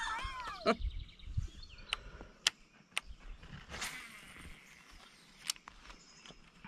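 Quiet outdoor pond ambience: a short warbling bird call at the start, then a few sharp, separate clicks and taps, with a brief rush of noise about four seconds in.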